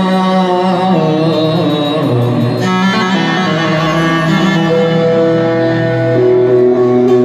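Live Arabic music: a melodic line of wavering, sliding notes over a steady low accompaniment, settling into long held notes in the second half.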